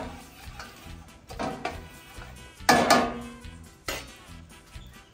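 Utensil knocking and clinking against a stainless-steel cooking pot a few times, the loudest knock about three seconds in with a short metallic ring. Faint background music underneath.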